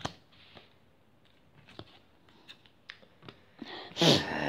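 Light taps and clicks of UNO playing cards being laid down and handled on a tabletop. About four seconds in comes a short voice sound from a player, falling in pitch; it is the loudest sound here.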